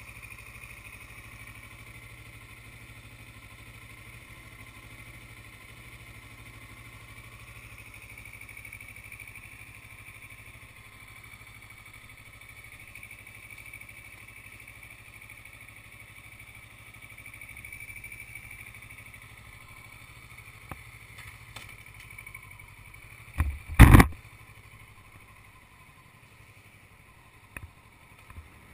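Sport motorcycle engine idling steadily. Two loud, sharp knocks close together come about three-quarters of the way through.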